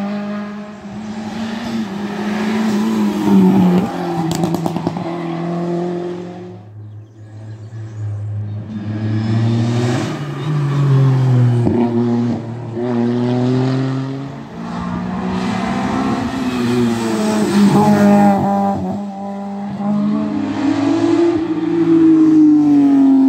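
Several rally cars coming through bends one after another, their engines revving up and down with gear changes and braking, with a few short cracks about four seconds in. It goes quieter between cars for a few seconds, then the next engine rises, and near the end a Porsche 911 rally car is arriving under acceleration.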